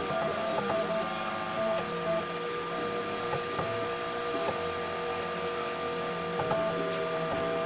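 3D printer's stepper motors whining as the print head moves. The pitch jumps between a few steady tones every second or so as the moves change, over a constant higher tone and a low hum.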